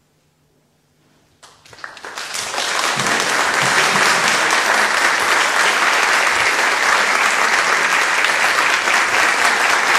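Audience applauding: after a moment of quiet, clapping breaks out about a second and a half in and swells within a couple of seconds into steady, loud applause.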